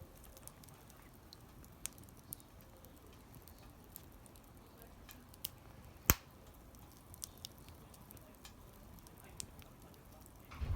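Small wood fire crackling quietly, with scattered sharp pops and one loud pop about six seconds in, and a low thump at the very end.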